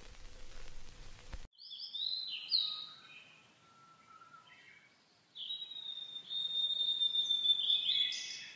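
Wild birds calling: a run of quick high chirps and short trills, then a long, nearly steady high whistled note held for about three seconds near the end. Before the birds, a short burst of hiss with faint clicks cuts off suddenly about a second and a half in.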